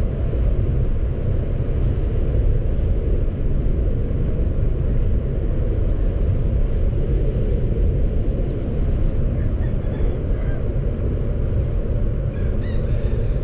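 Steady low rumble of a car driving downhill: road and wind noise.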